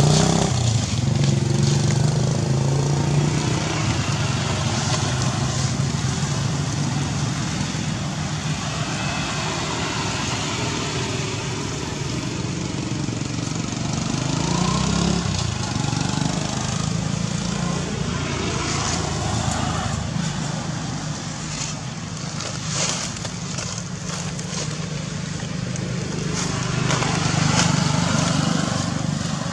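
A motor vehicle engine running steadily in the background, a low hum. Scattered short clicks and rustles of dry leaves, more of them in the second half.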